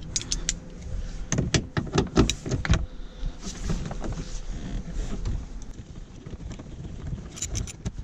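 Metal hand tools clicking and clinking as a ratchet, socket extension and T50 Torx bit are fitted together and set on a seat belt anchor bolt, with a quick run of sharp clicks near the end.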